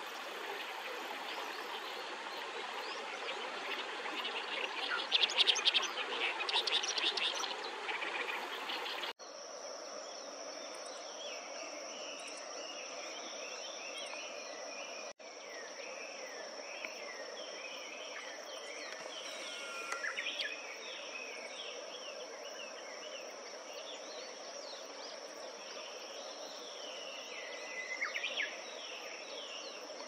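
Wild songbirds singing over a steady background hiss, with a loud burst of harsh, rapid song in the first several seconds. From about nine seconds on a continuous high-pitched insect trill runs under repeated bird phrases.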